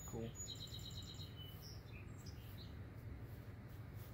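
Bird chirping: a quick run of short, high chirps starting about half a second in, then a few single chirps, over a steady low hum.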